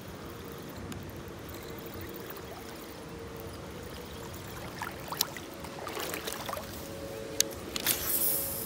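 Water splashing and trickling as a buzz bait is reeled across the pond surface, churning the water. Near the end come a few sharp clicks and a brief rustle of handling close to the microphone.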